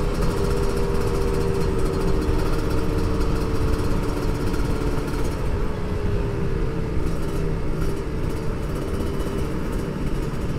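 Kawasaki Ninja RR motorcycle engine running at a steady pitch while cruising, over heavy road and wind noise. The engine note eases down a little about two-thirds of the way through.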